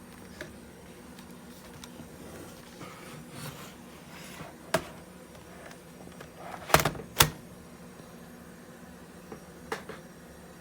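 Laptop being handled, with a few sharp clicks and knocks; the loudest are a pair close together about seven seconds in. A steady low hum runs underneath.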